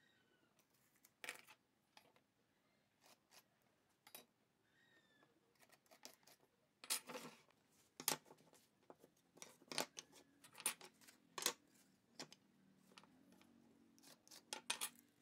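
Wood-shop layout handling sounds: pine boards knocked and slid on a wooden workbench, a pencil scratching marking lines, and a steel square set down on the wood. Short scattered taps and scratches, sparse at first and coming thick and fast in the second half.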